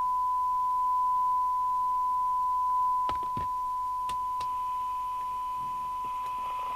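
Steady 1 kHz test tone, the signal generator's modulation demodulated by the CB radio's receiver, as used for a SINAD measurement. A few sharp clicks come about three to four and a half seconds in, after which fainter higher tones join it.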